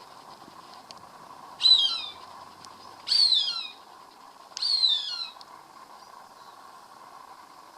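Cooper's hawk calling three times, about a second and a half apart, each call a short run of notes falling in pitch, over a faint steady hum.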